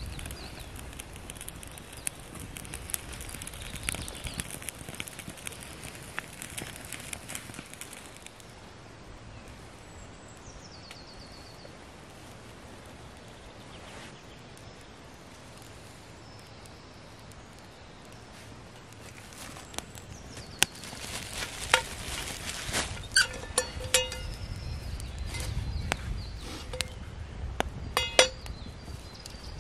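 Wood fire crackling in a small folding metal twig stove as sticks burn. In the second half, sharp metal clinks and knocks with short ringing notes as a copper frying pan is handled and set on the stove.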